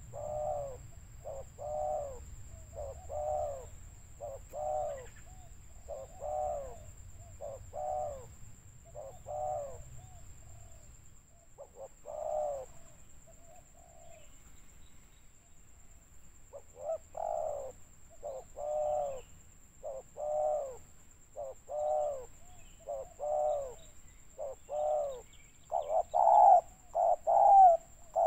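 Spotted dove cooing: repeated short coo phrases about every second and a half, with a pause near the middle, growing louder near the end.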